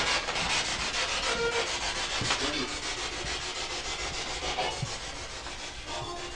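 Spirit box sweeping through radio stations: choppy static pulsing many times a second, with brief snatches of broadcast sound caught between the pulses.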